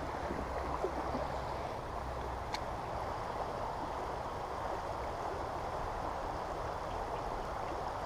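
Steady rush of stream water, with a single faint click about two and a half seconds in.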